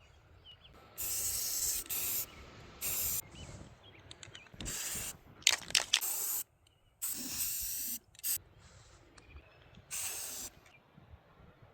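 Something spraying in about eight short bursts of hiss, each up to about a second long, with small clicks between them. This is the kind of spraying used while cleaning or painting a machine.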